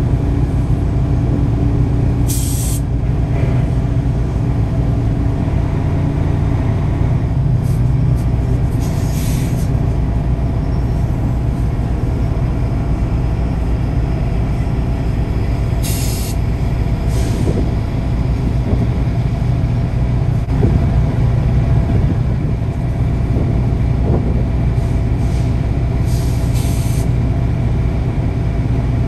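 An engine runs steadily with a low rumble as the vehicle creeps along, while short hisses cut in a few times, about two, nine, sixteen and seventeen seconds in and again near the end.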